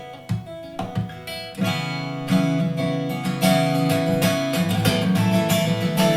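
Acoustic guitar music played through a Sony SRS-XB3 portable Bluetooth speaker. It starts with single plucked notes, then moves to fuller strummed chords that grow louder from about two seconds in.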